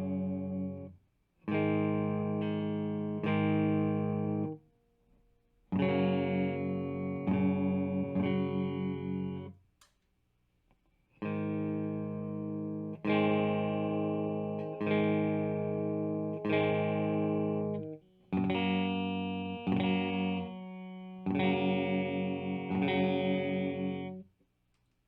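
Squier Classic Vibe Starcaster electric guitar played through an amp: chords struck and left to ring, in four short phrases of two to four chords each, with brief pauses between them.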